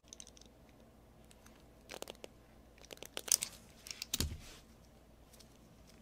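Orange-handled hand crimping and stripping tool squeezed on a speaker wire and its copper ring terminal: a handful of short clicks and crunches, clustered about two, three and four seconds in.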